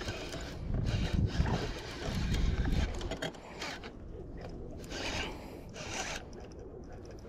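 Fishing reel working in irregular noisy bursts as a hooked largemouth bass is fought in, the bursts strongest in the first three seconds and weaker after.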